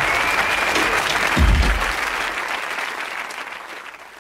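Studio audience applauding, with a single low thump about a second and a half in; the applause fades away over the last two seconds.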